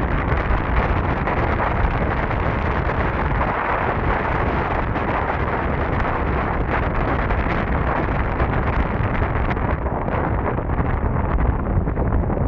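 Heavy wind buffeting the camera microphone while riding an electric scooter at speed, a steady rushing rumble that covers any sound from the scooter itself.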